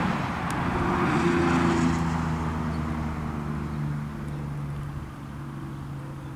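A motor vehicle passing on a road: tyre hiss fading over the first few seconds, over an engine hum that drops slightly in pitch and grows quieter.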